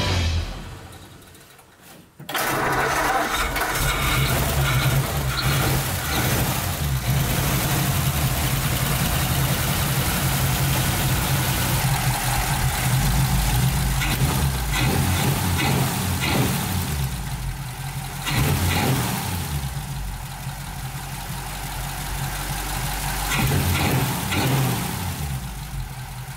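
Ford flathead V8 (8BA) engine running steadily at idle on its freshly rebuilt Holley 94 two-barrel carburetor, coming in about two seconds in after a short fade to near silence.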